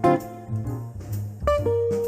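Background jazz music: guitar playing a melody of short plucked notes.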